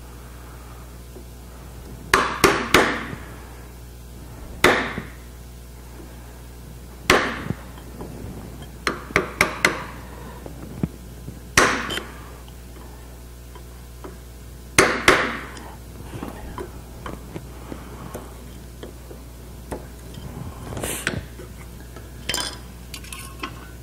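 Mallet striking a chisel to chop out the end of a hinge mortise in a wooden door stile: about a dozen sharp taps, some single and some in quick runs of three or four, spread over the first fifteen seconds. After that come lighter knocks and clinks of tools being handled on the bench.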